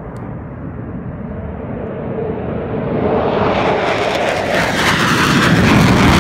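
QF-4 Phantom II's twin J79 turbojet engines at takeoff power, a steady jet noise that grows louder and brighter, loudest near the end.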